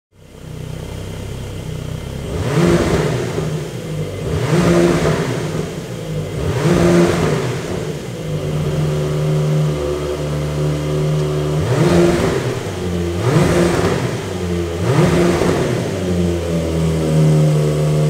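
Porsche 992 Carrera GTS twin-turbo flat-six running through a Fi valvetronic exhaust with its valves open (Fi muffler on stock downpipes, Stage 1 tune). It idles and is blipped in three short revs about two seconds apart, holds a steady idle, then gets three more blips a second or two apart, each falling straight back to idle.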